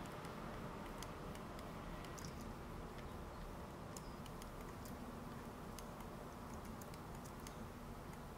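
Faint, irregular clicking of a computer mouse and keyboard being worked for Blender shortcuts, over a low steady room hum.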